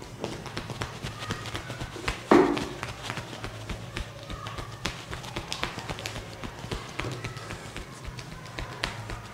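Hands working on a head during a head massage: many small irregular taps and clicks, with one much louder smack about two seconds in.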